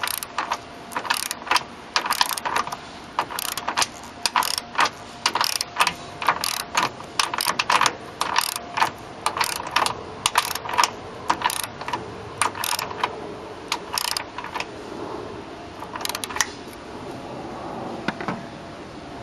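Ratchet head of a torque wrench clicking in quick back-and-forth bursts as a hood strut's mounting stud is tightened toward snug. The clicking stops a few seconds before the end.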